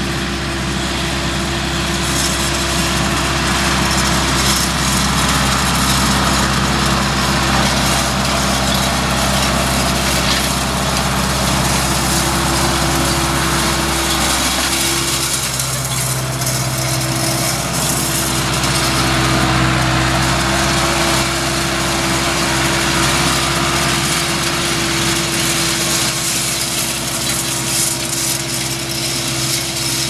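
Tractor engine running steadily while pulling a finger-wheel hay rake, with the rake wheels rustling and swishing through cut hay. The engine note shifts slightly about halfway through.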